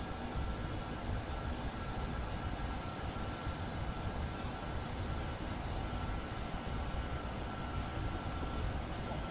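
Steady outdoor background rumble, heaviest in the low end, with a faint constant high-pitched tone above it and a few soft ticks.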